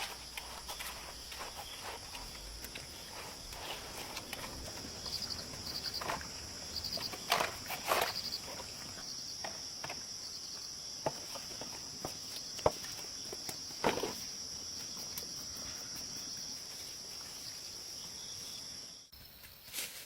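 Insects shrilling steadily in a high band, with short repeated chirps a few seconds in, over scattered soft steps, rustles and knocks, the loudest a little before halfway and again a little after. It all drops away abruptly near the end.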